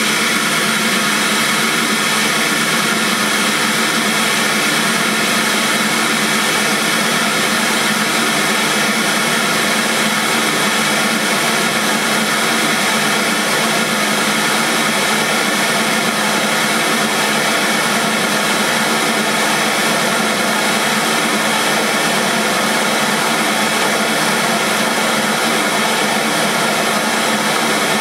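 FSD audio Standart 165 V 6.5-inch pro-audio midrange speaker playing a steady hiss-like noise test signal at constant level, with almost no deep bass in it. It is being run for a loudness measurement.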